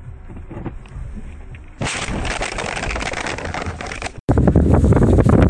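Dash-camera audio: a low road rumble, then about two seconds in a sudden loud, rough, crackling noise of the kind a collision makes, which cuts off abruptly. Near the end, heavy wind buffets the microphone.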